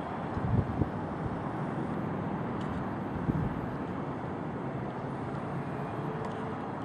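Steady outdoor background rumble with no clear single source, with a few soft low bumps about half a second in and again just past three seconds.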